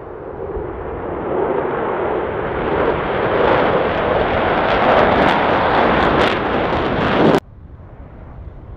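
Jet engines of a four-ship formation of fighter jets passing overhead: a loud roar that swells over the first few seconds, with a few sharp crackles near its peak, then cuts off abruptly to a much fainter jet rumble about seven seconds in.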